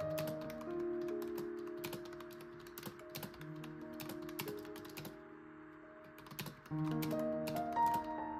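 Typing on a keyboard: quick, irregular key clicks that pause about five seconds in and start again shortly before the end, over soft sustained background music.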